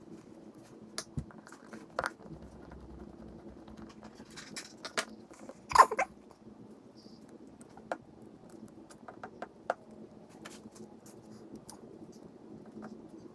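Scattered small clicks and taps of metal carburetor parts, screws and springs being handled during carb reassembly, with one louder brief clatter just before the middle, over a steady low hum.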